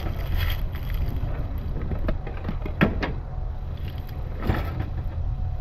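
Wind buffeting the microphone, a steady low rumble, with a few brief knocks and rustles, the clearest about three seconds in.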